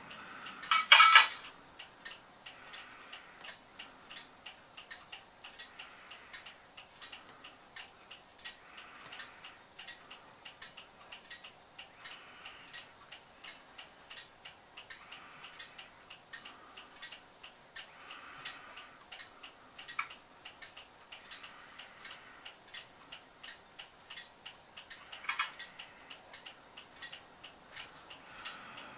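Simulated Class 37 diesel engine idling, played by a LokSound v5 sound decoder through a small speaker inside an OO gauge model locomotive. It gives a faint, even ticking clatter at about two to three beats a second, with a short louder burst about a second in and another near the end.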